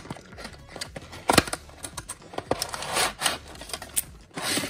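A small cardboard toy box opened by hand: flaps and card scraping and snapping, with a sharp snap about a second and a half in. Near the end, a short rustle as a plastic bag and paper slide out of the box.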